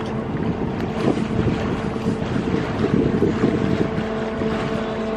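Canal tour boat under way: its motor runs with a steady hum while wind buffets the microphone.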